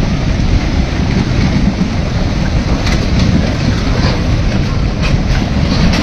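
Debris flow of mud and boulders rushing down a channel: a steady heavy rumble, with rocks knocking against each other now and then.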